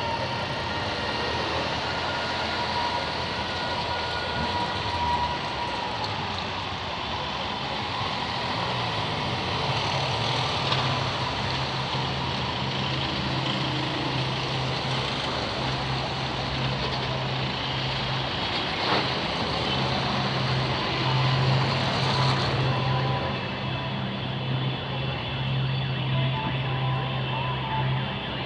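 Slow convoy of police vans passing on a wet cobbled street: engines running and tyre noise on the wet road. A steady deep engine hum sets in about nine seconds in.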